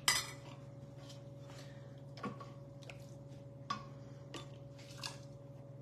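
A metal ladle knocking lightly against a plastic canning funnel and glass mason jar as hot salsa is ladled in: several short clicks and small wet pours, the sharpest click right at the start, over a steady low hum.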